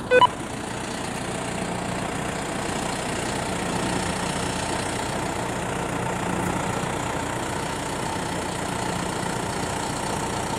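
Tractor engine running steadily at idle, an even drone without change.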